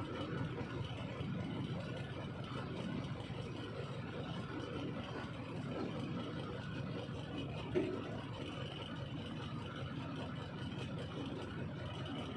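Truck engine idling steadily, with a single short knock about eight seconds in.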